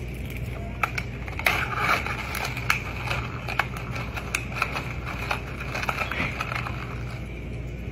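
Ice cubes clinking and rattling in a plastic cup as a straw stirs them: irregular sharp clicks over a steady low hum.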